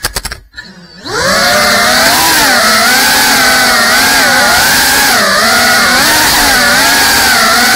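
GEPRC Cinelog 35 ducted FPV drone's brushless motors and propellers whining, the pitch wavering up and down with the throttle. A few clicks at the start, then the motors go nearly silent for about a second before spooling back up with a rising whine.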